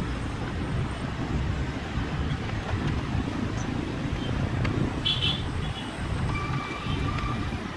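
Homemade RC air boat's electric ducted fan running as the boat speeds across the water: a steady, noisy rumble.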